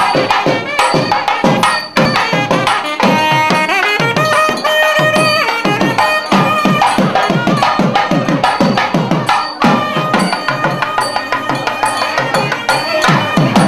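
South Indian temple music: a nadaswaram reed pipe playing a melody with sliding notes over fast, continuous thavil drumming.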